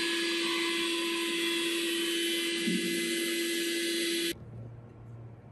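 Heat gun blowing steadily, a hiss with a steady hum, switched off abruptly about four seconds in; a faint low hum remains after.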